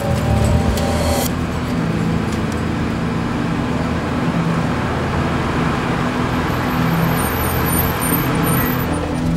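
Car engine running as a vintage black sedan drives up, over a low steady drone. A short sharp click comes about a second in.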